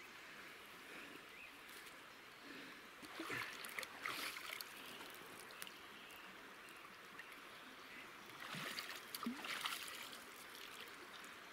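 A river flowing steadily in the background, with two spells of rustling and knocking: about three seconds in, and again about eight and a half seconds in.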